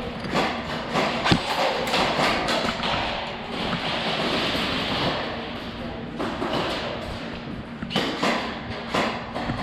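Irregular sharp clicks and thumps of an airsoft game in play, with a loud knock about a second and a half in and another cluster of hits near the end.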